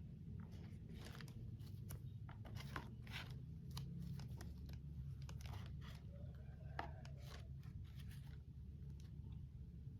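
Packaging being handled and unwrapped during the unboxing of a plastic box: irregular crinkles, tears and small clicks over a steady low hum.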